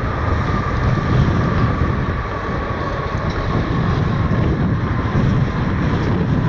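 A Boeing 747 Large Cargo Freighter's four turbofan engines during the landing rollout: a loud, steady deep rumble with a high whine that slowly drops in pitch as the engines wind down.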